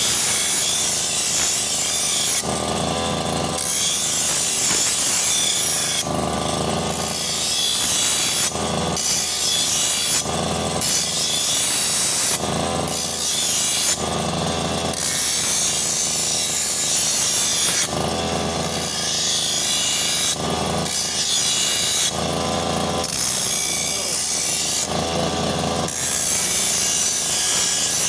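Petrol brush cutter running, its engine note rising and falling every couple of seconds in repeated surges.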